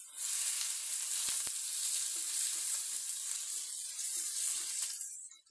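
Sliced onions sizzling as they fry in hot ghee and oil in an aluminium pot, stirred with a wooden spatula. It is a steady, hissing sizzle that dies away near the end.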